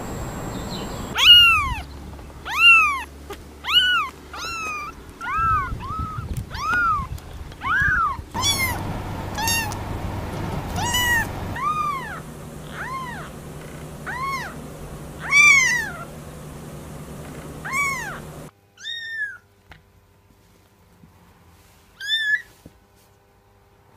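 Cats and very young kittens meowing: high-pitched cries that rise and fall in pitch, roughly one a second, becoming sparse over the last few seconds.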